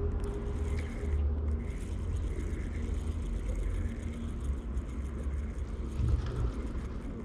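Steady low rumble of road traffic crossing the highway bridge overhead.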